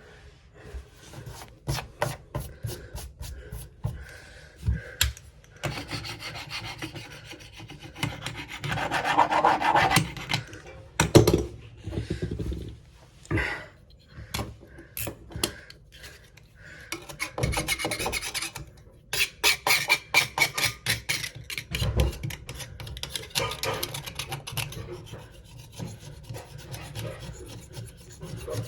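Scraping and scrubbing dirt and hair off the rim of a front-loading washing machine's drum opening where the door seal seats, in irregular rubbing strokes with scattered clicks and a louder knock about eleven seconds in.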